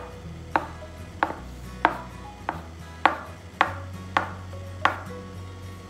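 Bench scraper chopping a rope of soft pasta dough into nuggets, knocking sharply on the work surface with each cut, eight times at an even pace of about one cut every two thirds of a second.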